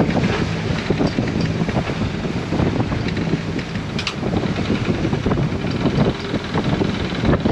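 Anchor windlass hauling in anchor chain: irregular clanks of the chain links over a steady low mechanical hum, with wind on the microphone.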